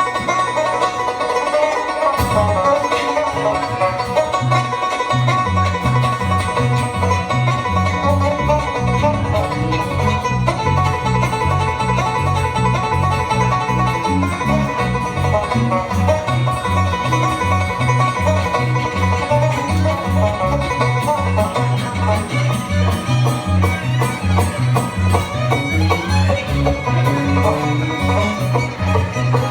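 Live bluegrass band playing an instrumental, with banjo leading over fiddle and guitar and a steady alternating bass line.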